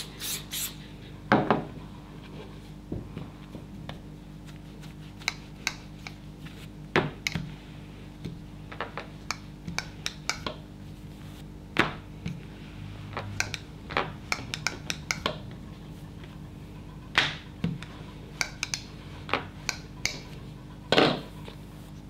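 Pastillage being rolled out with a plastic rolling pin on a work table: irregular taps and knocks as the pin and tools are set down and picked up, with some rubbing between them, over a faint steady hum.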